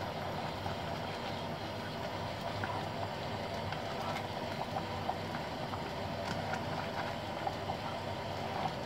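A spoon stirring thick, simmering coconut milk and glutinous rice in a metal saucepan, with light clicks and scrapes against the pan now and then over a steady hiss from the gas burner and the simmering pot.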